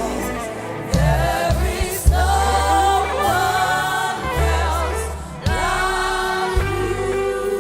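Live gospel worship music: voices singing long held notes in chorus over a band with steady bass notes and a few sharp drum hits.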